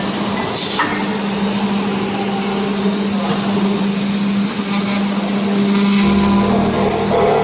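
A CNC router's 6 kW water-cooled spindle running: a steady machine hum with a high whine above it.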